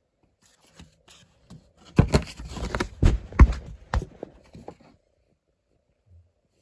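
Handling noise from unpacking a plush blanket from its cardboard box close to the microphone: rustling with several sharp knocks and clicks, about two to five seconds in.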